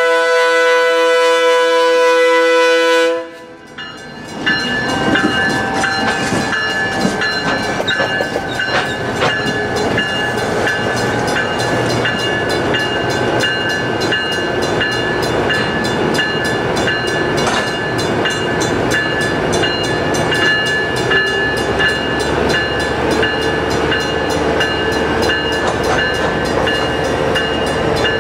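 The lead GP25's Leslie RS3K three-chime air horn sounds a loud chord that cuts off sharply about three seconds in. Then the diesel locomotives and hopper cars roll past close by, with wheels clicking over the rail joints and a steady high ringing tone over the din.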